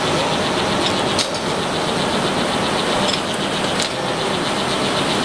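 Lathe running steadily under power, a dense mechanical whirr, with a couple of sharp clicks, about a second in and again near four seconds.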